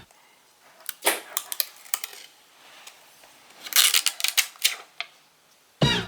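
Sharp clicks and taps of small phone parts and tools during smartphone reassembly. There is a quick run of clicks about a second in and another around four seconds in.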